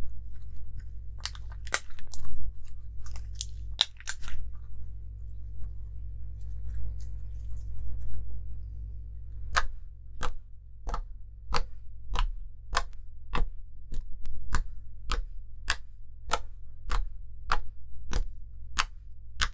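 Homemade sugar slime being squeezed in the hands, giving irregular wet crackles and pops. After a quieter stretch, fingers poke the flattened slime in a steady run of sharp sticky pops, about one and a half a second, over a steady low hum.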